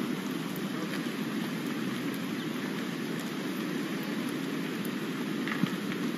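Steady rush of a fast-flowing river, with faint scattered clicks of stones underfoot and one sharper click about five and a half seconds in.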